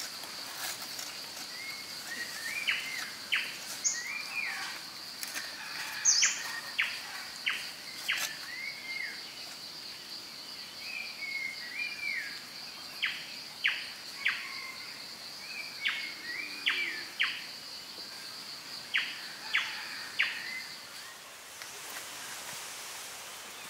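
Wild birds calling with many short, sharp chirps and brief whistled notes over a steady high-pitched insect drone, which stops about 21 seconds in.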